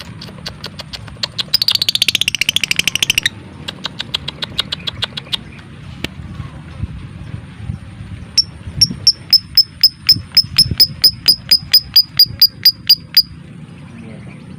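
Lovebird calling: a fast, loud rattle of sharp chirps about a second in, then softer ticks, and from about eight seconds a long run of evenly spaced, high, sharp chirps at about five a second. These are the rapid 'ngetik' (typing-like) and 'ngekek' (trilling) calls that bird keepers play to set other lovebirds calling.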